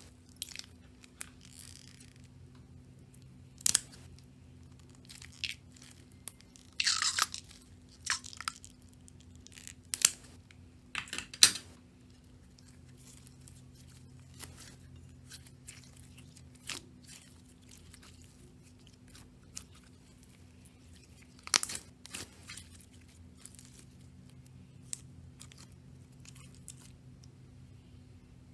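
Slime being worked by hand, giving scattered sharp pops and crackles, with a short run of crackling about seven seconds in.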